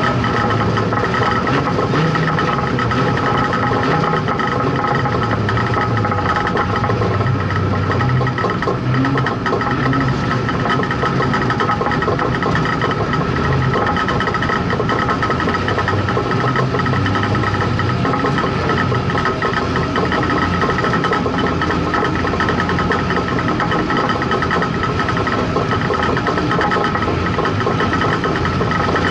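Street stock race car's engine running, heard from inside the caged cockpit, its pitch rising and falling a little as the car circulates. A steady high whine runs alongside it.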